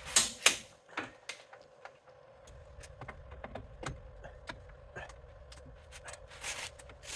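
Click-type torque wrench on the hub bearing-to-knuckle bolts: two sharp clicks near the start as a bolt reaches its 125 ft-lb setting, then lighter clicks and ticks of the ratchet as the wrench is reset and worked.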